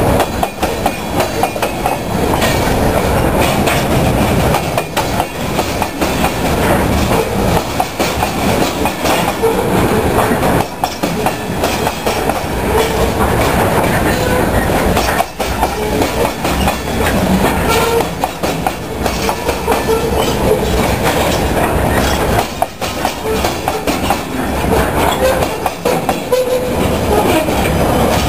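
A freight train of covered hopper cars rolling past close by: a steady loud rumble of steel wheels on rail, with rapid clicking over the rail joints and short squeals now and then.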